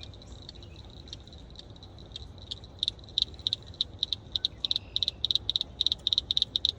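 A frog calling: a series of short, high clicks that start sparse and speed up into a fast run about halfway through, over a low steady rumble.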